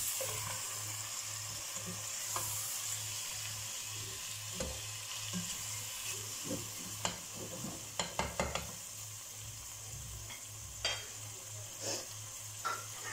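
Chicken pieces and freshly added tomatoes sizzling in oil in a pot while being stirred with a spatula, with a few sharp knocks of the utensil on the pot about halfway through and near the end.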